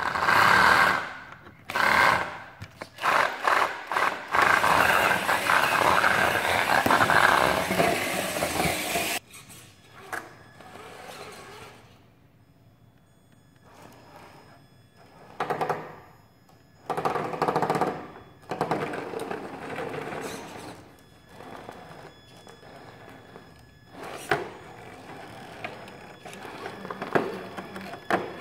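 Traxxas TRX-4 RC crawler's electric motor and drivetrain whirring in bursts of throttle, with tyres scrabbling and the chassis knocking as it climbs over obstacles. A long hard run of driving comes first, then shorter blips after a quiet pause.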